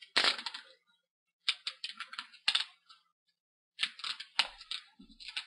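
Adhesive tape being peeled up off a laptop screen's LCD cable connector by hand: quick papery crackles and clicks in three short clusters.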